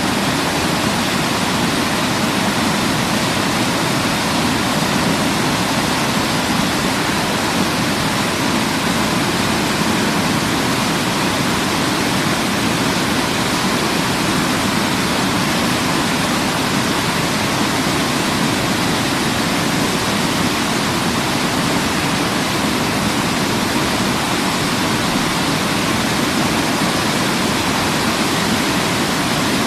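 Waterfall rushing, a loud steady wash of falling water that does not change.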